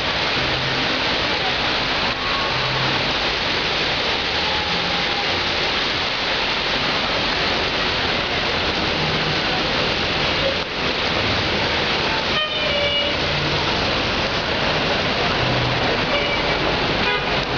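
Steady rushing noise of traffic and water on a flooded street. A brief car horn toot sounds about twelve seconds in.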